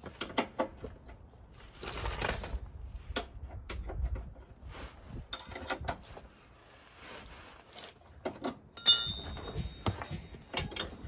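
Hand-tool work on a car's front suspension: scattered metal clicks, knocks and a short scrape as the lower control arm's through-bolt is worked loose, with one sharp ringing metal clink about nine seconds in.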